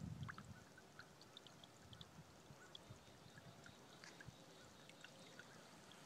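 Faint trickle of water running out of an overflowing pond, a steady quiet flow with scattered small splashes.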